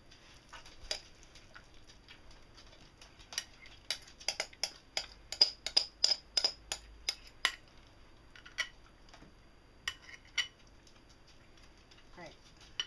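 A spoon scraping and knocking against a glass mixing bowl as egg mayonnaise is scooped out into a plastic tub. It makes a run of sharp clicks and taps, busiest in the middle, then a few scattered knocks and a louder one at the end.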